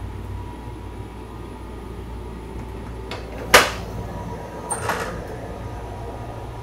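A train running, heard from inside the car as a steady low rumble. A single sharp knock comes about three and a half seconds in, followed about a second later by a shorter, fainter clatter.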